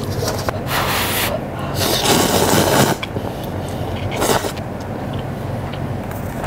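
A person blowing on hot cup noodles and slurping them, in several short noisy bursts. A steady low hum sits underneath.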